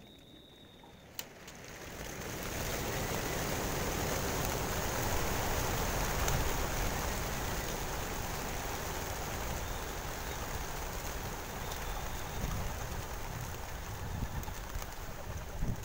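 Wingbeats of a large flock of racing pigeons taking off together as they are released from their crates for a race: a rain-like rush that swells about two seconds in and then holds steady.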